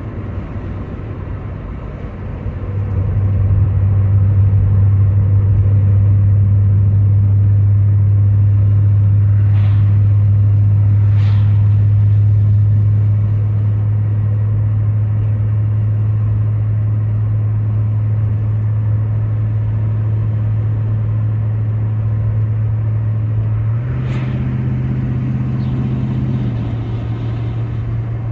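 Vehicle engine and exhaust droning steadily, heard from inside the cab while driving. It gets louder about three seconds in. Its pitch steps up a few seconds before the end, then settles a little lower.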